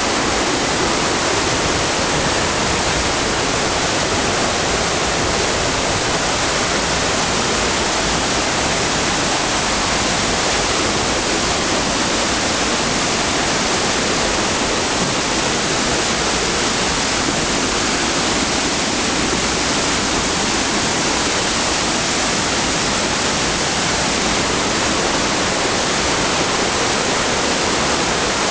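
Mountain stream cascading over granite in a narrow rock gorge: a steady, unbroken rush of falling water.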